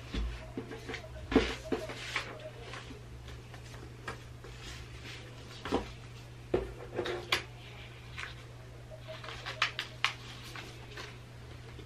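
Sheets of paper and cards being handled, rustled and folded on a desk, with scattered small knocks and taps; the loudest knock comes about one and a half seconds in. A steady low hum runs underneath.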